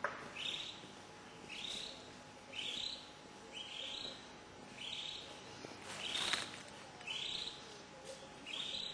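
A songbird calling: a short, slightly rising note repeated about nine times, roughly once a second.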